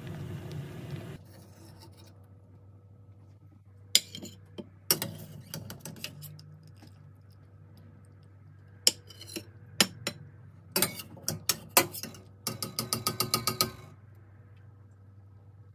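Metal slotted spoon clinking and knocking against a stainless-steel saucepan and a plate, in scattered single clinks and then a quick run of rapid taps near the end. Boiling broth bubbles briefly at the start.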